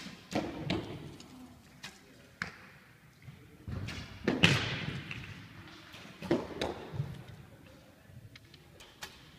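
Recurve bows being shot: several sharp string releases and arrow hits on the targets at irregular intervals, the loudest about midway, each echoing around a large sports hall.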